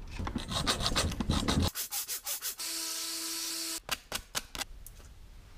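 Rapid back-and-forth rasping strokes of a hand tool working the end of a copper brake line. A steady tone with hiss lasts about a second in the middle, followed by a few sharp clicks.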